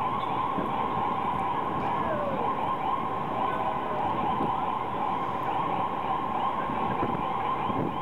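Ambulance siren sounding continuously in fast repeating rises and falls, over the steady noise of heavy city traffic.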